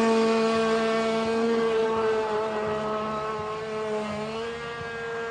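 Motorboat engine running at a steady high speed, its pitch dipping slightly about four seconds in and then recovering.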